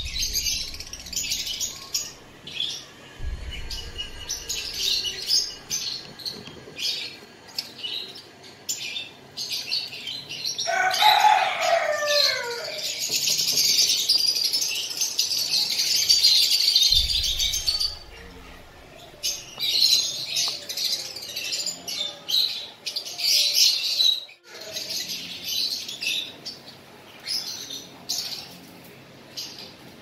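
A flock of caged lovebirds, masked-lovebird colour mutations, chattering with constant high chirps. About eleven seconds in comes a louder call that falls in pitch.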